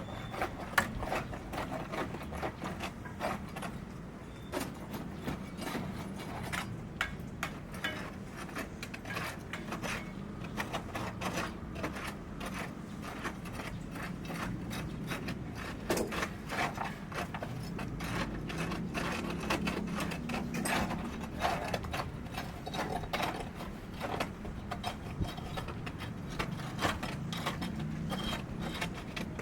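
Building-site work: dense, irregular clicking and knocking over a steady low hum, with a sharper knock about a second in.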